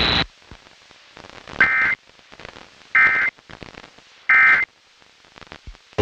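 Emergency Alert System SAME end-of-message data tones: three short, identical buzzy digital bursts about 1.4 s apart, with faint static between them. They mark the end of the broadcast severe thunderstorm warning.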